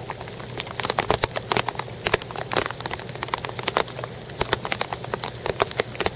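Raindrops tapping irregularly and close up, dense and sharp, over a low steady hum.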